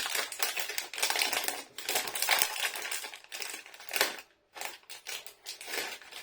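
A plastic snack packet crinkling as it is opened and handled. The irregular crackles are dense for about four seconds, then thin out to a few scattered rustles.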